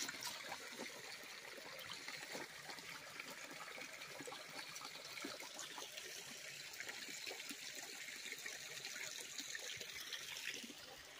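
Small mountain creek trickling, a faint steady running of shallow water.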